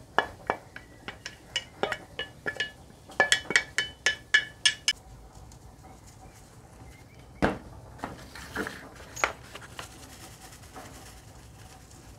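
A ceramic bowl and wooden spoon knocking against a stainless steel mixing bowl as diced potatoes are tipped in: a quick run of clinks over the first five seconds, with the steel bowl ringing after each one. After that come quieter rattling shakes of a spice jar over the bowl and a single dull thump.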